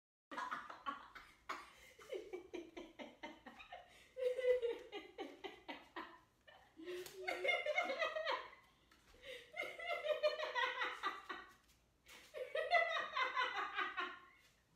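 A woman laughing hard in several long bouts, with short breaks between them.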